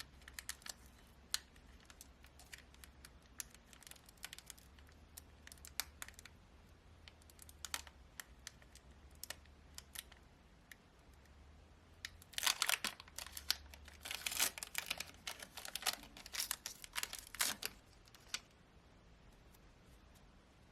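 A Pokémon Trading Card Game booster pack's foil wrapper being handled and torn open. Scattered light crackles and clicks give way, a little past halfway through, to a run of louder crinkling and tearing.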